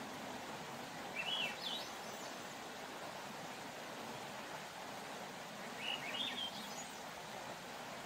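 Swainson's thrush singing two short phrases that spiral upward in pitch, one about a second in and another about five seconds later, over a steady background hiss.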